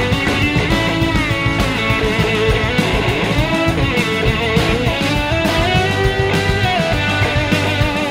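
Live rock band music: an electric slide guitar plays a lead line, its notes gliding smoothly up and down in pitch, over a full band with drums.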